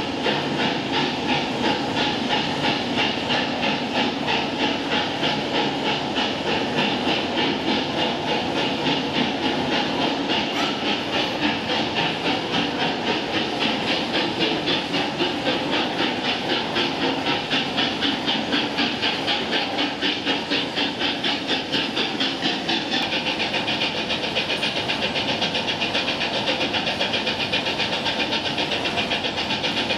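SNCF 232 U1 Hudson-type steam locomotive chuffing in a steady rhythm of about three beats a second, with hissing steam, as its driving wheels and coupling rods turn. The beat grows more even about two-thirds of the way through.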